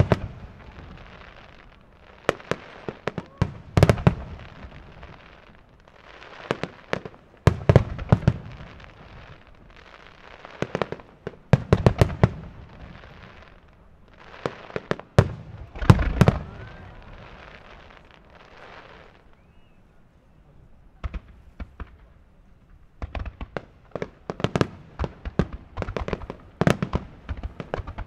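Aerial firework shells bursting: clusters of sharp bangs every couple of seconds with crackling between them. There is a lull about three-quarters of the way through, then a fast, dense run of bangs near the end.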